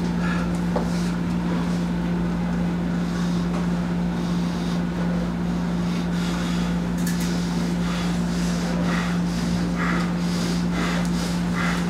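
A steady low hum, with short rasping sounds repeating about once a second from about eight seconds in.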